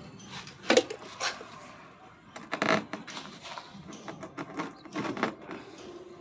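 Scattered sharp knocks and scrapes of hand work on a granite slab laid on wet mortar. A few louder knocks come in the first three seconds, then a quicker run of light taps.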